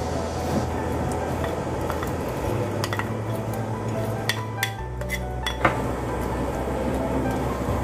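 A wooden spoon stirring a pot of boiling egg-and-onion soup, knocking against the pot in several sharp clicks in the middle, over the soup's steady bubbling.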